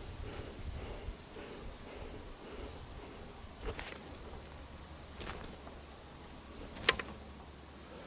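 An insect's steady, high-pitched trill carries through, over soft footsteps in dry leaf litter. A few sharp clicks or snaps break in, the loudest about seven seconds in.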